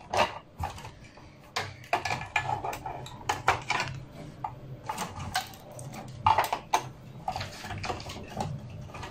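Irregular metallic clicks and clinks as a screwdriver works the heat sink's retaining screws inside a Dell desktop's sheet-metal case, with tool and metal parts knocking against each other.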